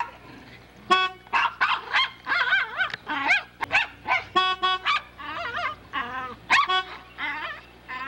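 Poodle barking and yipping in a rapid, excited run of short high-pitched yelps and wavering whines, starting about a second in.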